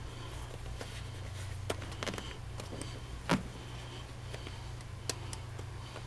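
Rubber buckle overshoe being tugged on over a boot, its metal buckles handled: a few short clicks and faint rubbing, with one louder click a little past halfway, over a steady low hum.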